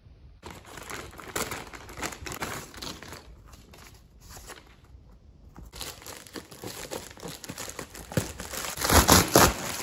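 Plastic poly mailer bags crinkling and rustling as they are handled and cut open with scissors. The crinkling pauses briefly about halfway through, then resumes and is loudest near the end.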